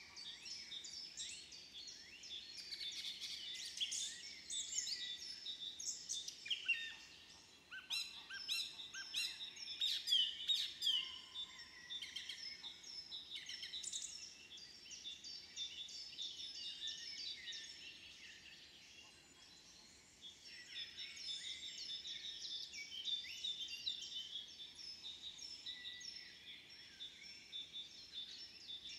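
Several small songbirds singing and calling over one another in quick chirps and trills, with a short lull about two-thirds of the way through.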